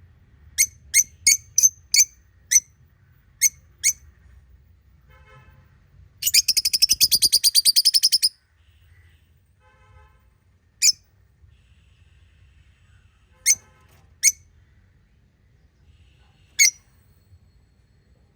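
Small pet parrots chirping: a quick run of sharp, high chirps, then a rapid chattering trill lasting about two seconds, then single chirps every few seconds.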